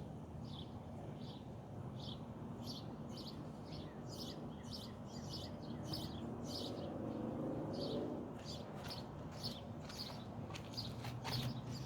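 Birds chirping, short high chirps repeating a few times a second and growing more frequent toward the end, over a low steady hum.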